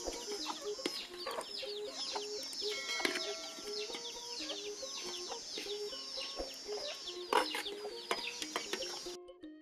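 Chickens clucking and calling over and over, with a metal spoon now and then knocking and scraping against a metal tray and pot; one knock about seven seconds in is louder. It cuts to background music just before the end.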